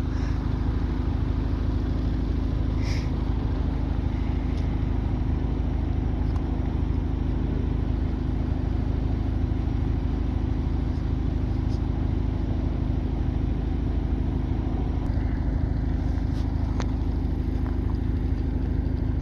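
Align T-Rex 600 ESP RC helicopter running steadily with its rotors spinning, a constant mechanical hum.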